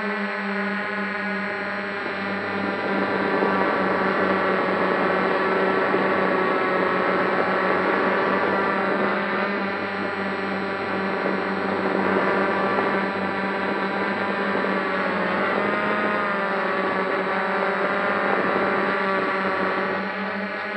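Electric motors and propellers of a heavily loaded multirotor drone (about 2.9 kg with dual batteries) whirring in flight, heard from its onboard camera. The steady buzz gets louder a couple of seconds in, and its pitch wavers and bends around the middle as the motors change speed.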